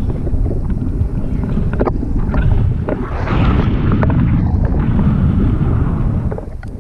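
Wind buffeting an action camera's microphone in the airflow of a paraglider in flight: a loud, gusty low rumble with a few short knocks. It grows louder and brighter about three seconds in.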